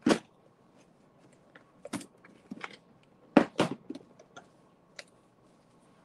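Scattered knocks and clicks of a plastic storage bin of paper being picked up and carried, with a close pair of knocks a little past the middle.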